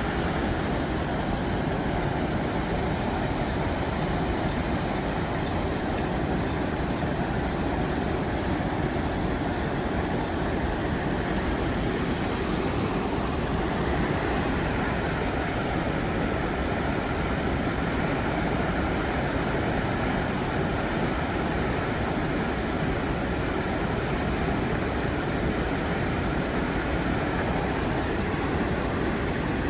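Flowing water rushing steadily, an even, unbroken noise.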